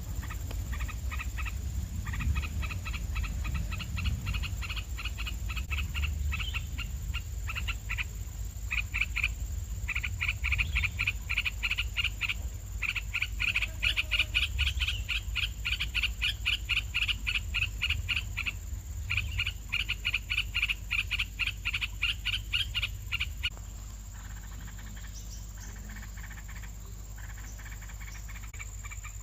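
Nestling birds giving rapid trains of short, high begging calls, many per second, in bouts that stop about 23 seconds in, with only fainter calls after; a hungry brood calling for food. A steady low rumble runs underneath.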